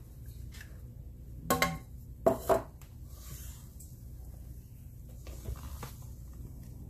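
Two clanks on a stainless steel mixing bowl, each ringing briefly, under a second apart. Softer scraping follows as a spatula folds thick sponge-cake batter in the bowl.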